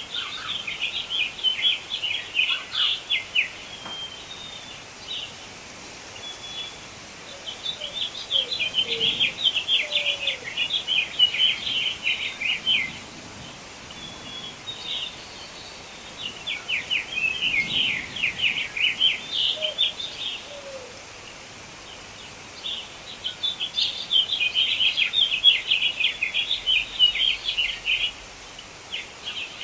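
A songbird singing four long phrases of rapid, high chirps, a few seconds apart, over a steady faint hiss.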